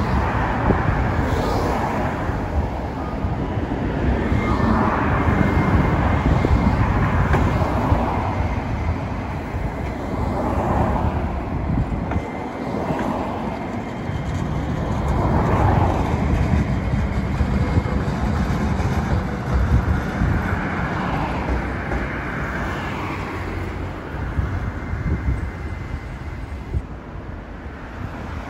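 City street traffic: cars and a streetcar passing, heard as a steady road rumble with several swells as vehicles go by.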